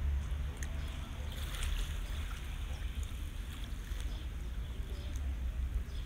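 Small waves lapping and trickling on a pebble shore, over a steady low rumble, with a slight swell of washing sound near the start.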